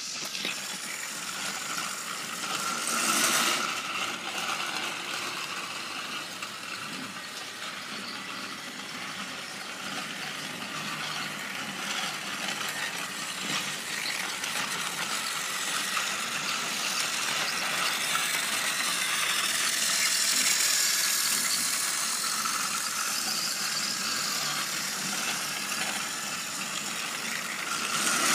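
Battery-powered toy trains running on plastic track: a steady whirring and rattling of small motors, gears and plastic wheels, swelling louder a few times as a train passes close.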